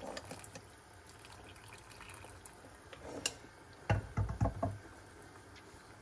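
Beef broth pouring in a thin stream into a saucepan of soup, a steady splashing fill. About four seconds in, a quick run of low knocks, the loudest thing heard.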